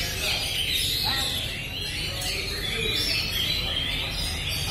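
Many caged oriental magpie-robins (kacer) singing at once: a dense, unbroken tangle of overlapping whistled and chattering phrases, over a steady low rumble.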